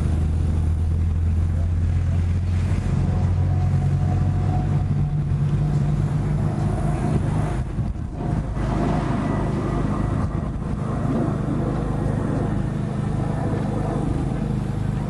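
An engine running steadily with a low hum. Its note shifts upward about four seconds in, dips briefly near the middle, then settles.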